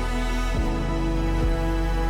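Background music: slow, sustained instrumental tones over a deep bass, the notes changing about every second.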